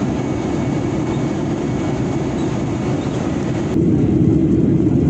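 Airliner cabin noise heard from inside the aircraft as it taxis: a steady low rumble of the engines and wheels with hiss above. About four seconds in it changes abruptly to a louder, deeper rumble with less hiss.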